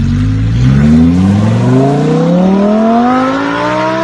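Lamborghini Huracán's V10 engine accelerating hard away in one long pull, the exhaust note rising steadily in pitch.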